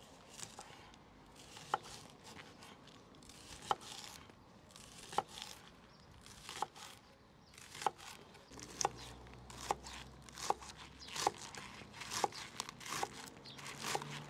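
Repeated sharp knocks, each with a brief ring, about one every one and a half seconds, then quicker, over a rustling, crinkling background, typical of food preparation. A low steady hum comes in about two-thirds of the way through.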